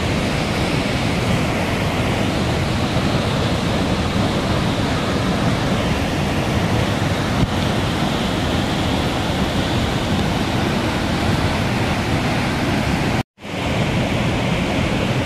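Muddy floodwater pouring over a rocky waterfall: a loud, steady rush of water that cuts out for a moment about two seconds before the end.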